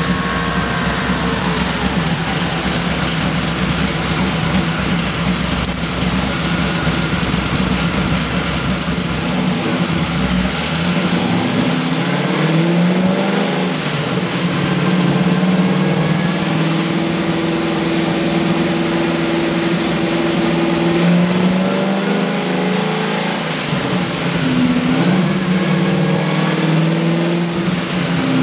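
First-generation Chevrolet Camaro's engine running on a chassis dyno, its pitch climbing in stages as it is run up, with a long steady stretch between the rises.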